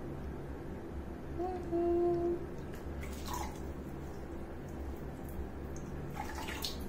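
Water dripping and splashing lightly as a newborn monkey is washed by hand in a small tiled bathroom. Over a steady low background hum, a brief low tone rises slightly and holds for under a second about a second and a half in, and there are a couple of short splashy sounds later on.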